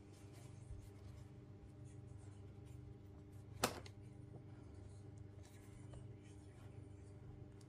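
Faint rubbing and scratching of hands handling a crocheted yarn toy, fitting the stuffed head onto the body. There is one sharp click partway through, over a steady low hum.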